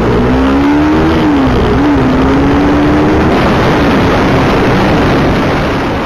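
Motorcycle engine running at speed with heavy wind and road rush on the microphone. The engine note rises in the first second, dips briefly, then holds steady.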